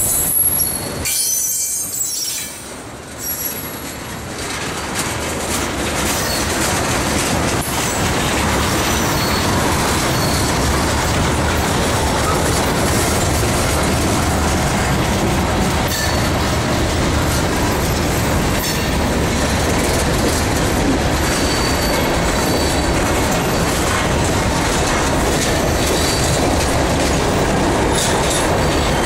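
Freight train's tank cars and covered hoppers rolling past close by, a steady rumble of wheels clacking over the rails with a faint high squeal now and then. The sound dips briefly a second or two in, then holds loud and even.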